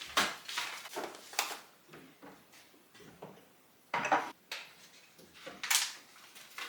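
Irregular clunks and clatters of household objects being handled, such as dishes and cupboard or drawer fittings: a quick run of knocks in the first second and a half, then a louder pair about four seconds in and another near six seconds.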